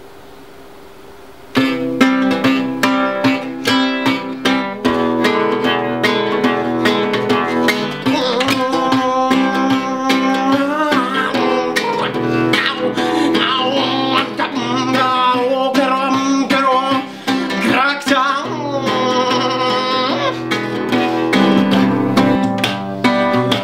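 Acoustic guitar strummed steadily, starting about a second and a half in. A man's voice sings over it from about eight seconds in.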